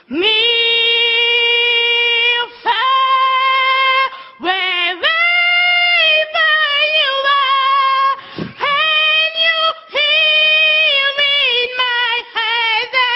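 One high voice singing a slow tune in long, steady held notes, in short phrases with brief breaks between them.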